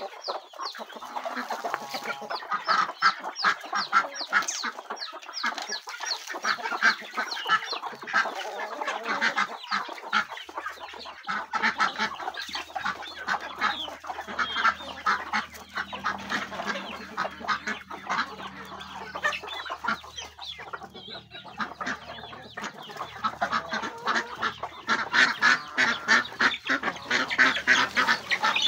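Domestic chickens clucking while a flock of chickens and ducks feed on rice, with a fast, continuous clatter of beaks pecking and dabbling at the ground.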